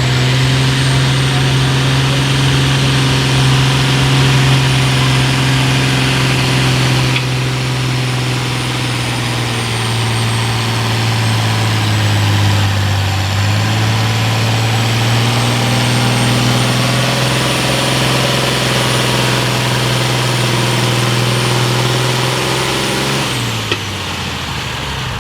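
Massey Ferguson farm tractor engine pulling a sled under full load, running loud and steady, its pitch sagging about halfway through as the engine lugs down. Near the end the pitch falls away as the throttle comes off at the end of the pull. A faint high whine sits above the engine throughout.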